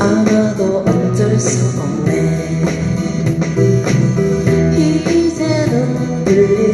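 Acoustic guitar strummed in a steady rhythm as song accompaniment, with a woman's singing voice holding notes over it.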